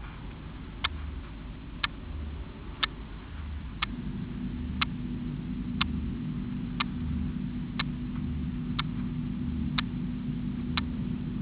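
Regular sharp ticks, one a second, over a low hum; a steady low tone joins about four seconds in.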